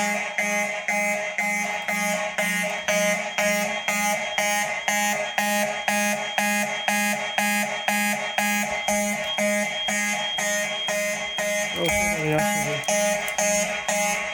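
Fire alarm horns sounding in alarm, a buzzy horn tone pulsing on and off in an even, rapid march-time beat. About twelve seconds in, a brief wavering lower sound rises over the horns.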